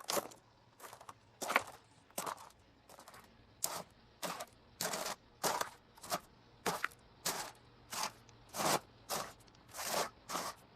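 Footsteps walking at a steady pace, about two steps a second, each step a short noisy crunch.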